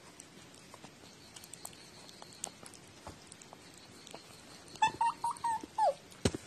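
Domestic cat giving a quick run of about five short, chirping meows near the end, the last one sliding down in pitch; the run is heard as the words "kakato kōkō". Before it, only a few faint clicks.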